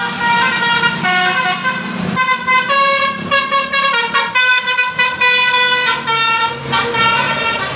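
Bus 'telolet' horn: a multi-tone air horn playing a fast, tootling tune of notes that jump between pitches. Some notes are held and others are short, quick toots.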